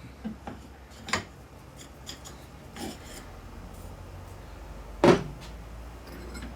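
Metal tools and steel transmission parts clinking and knocking while a bearing is pulled off an M5OD gearbox shaft with a puller, with two louder clanks about a second in and about five seconds in.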